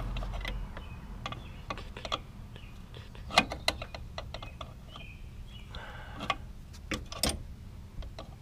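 Irregular metallic clicks and taps of a 9/16 wrench working the brake line fitting on a truck's brake master cylinder, with a couple of louder knocks along the way.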